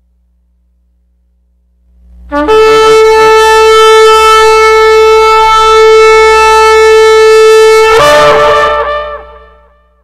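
A shofar blown in one long blast, starting about two seconds in. It holds a steady note for about five seconds, then breaks upward into a higher, wavering note before fading out.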